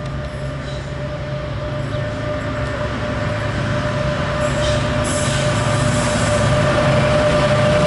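Diesel-hauled freight train approaching, growing steadily louder: a low engine rumble under a steady high whine, with the rail noise filling out about five seconds in.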